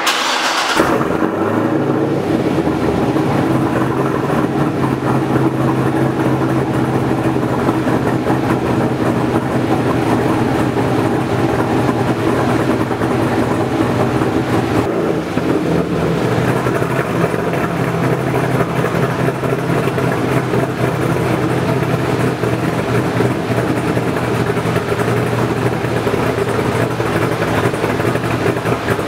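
2009 Corvette C6 Z06's 7.0-litre LS7 V8, built with a 238/255 camshaft, Stage 2 heads, Pfadt headers and a full B&B exhaust, idling steadily.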